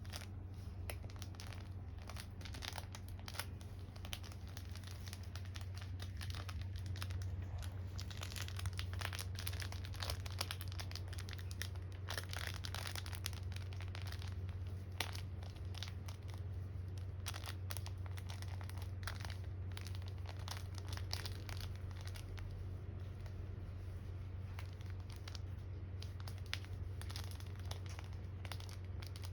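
A dog chewing and tearing at a new crinkly toy: irregular crinkling, crackling and ripping throughout, over a steady low hum.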